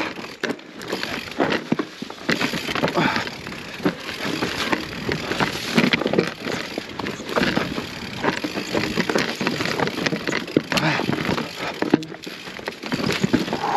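Mountain bike riding over loose volcanic rock: tyres crunching and clattering on stones that roll under the wheels, with a dense run of sharp knocks as the bike jolts through the rocks.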